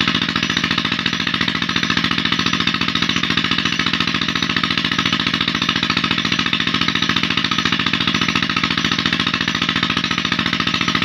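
Peter (Petter-type) diesel engine running a tubewell, chugging steadily with a fast, even beat that does not change.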